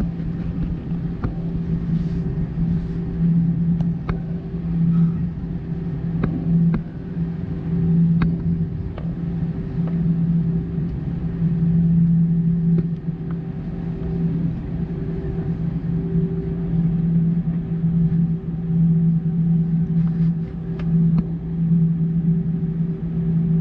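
Cabin noise of an Airbus A320 rolling slowly onto the runway, its CFM56-5 engines at idle: a steady low hum that swells and fades slightly, over a rumble, with a few faint clicks from the cabin.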